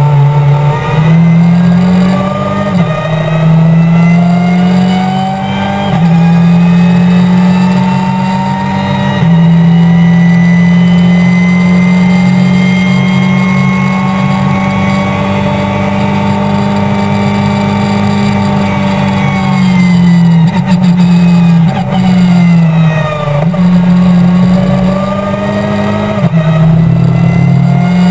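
Race car engine heard from inside the cabin, rising in pitch as it accelerates up through the gears, holding a long high pull on a straight, then falling under braking and downshifts about 20 seconds in before rising again near the end.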